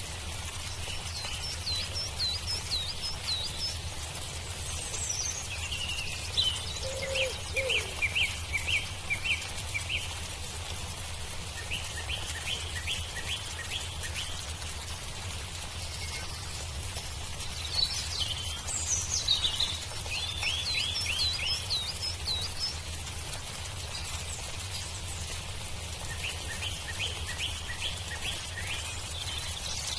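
Birds calling in phrases of quick repeated high notes, each phrase a few seconds long and coming back several times, over a steady low background rumble.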